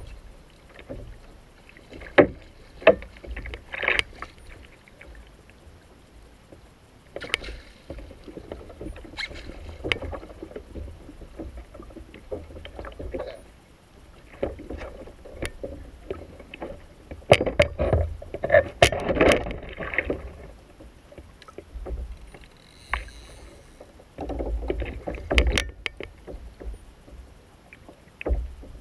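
Water lapping and slapping against a fishing kayak's hull and outriggers, with scattered sharp clicks and knocks from the fishing rod, reel and tackle being handled. The knocks come thickest about two-thirds of the way through.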